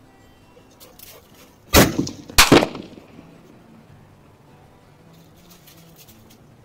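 A 6.5-calibre rifle firing: a loud sharp report about two seconds in, followed about half a second later by a second loud crack, with the sound trailing off briefly afterwards.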